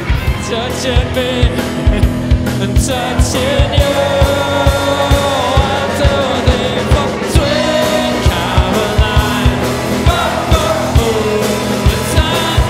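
Live rock band playing: electric guitars over a drum kit with a steady beat, and a voice singing.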